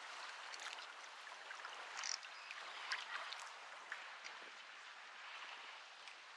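Choppy water lapping and splashing against a kayak hull, with scattered small sharp slaps and ticks.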